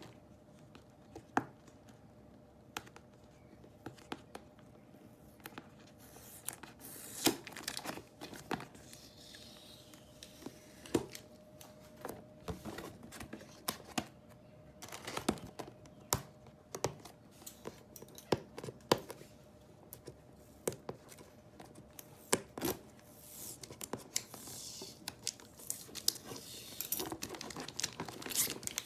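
Headset packaging being handled and opened: irregular crinkling, rustling and tearing, with many sharp clicks and knocks, over a faint steady hum.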